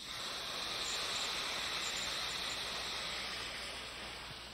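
Cut-up lobster pieces sizzling in a hot sauté pan as cognac is poured in. It is a steady hiss that swells over the first second and then slowly dies away.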